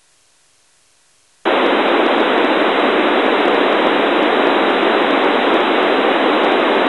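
Narrow-FM receiver on the ISS 145.8 MHz downlink: near-quiet, unmodulated carrier for about a second and a half, then the satellite signal drops out and loud, steady FM static hiss takes over, the sound of an open squelch with no signal.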